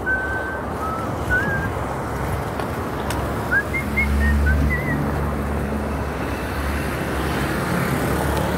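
City traffic and wind noise heard from a moving bicycle, with a vehicle engine humming close by about four seconds in. A few short whistled notes sound near the start and again around four seconds in.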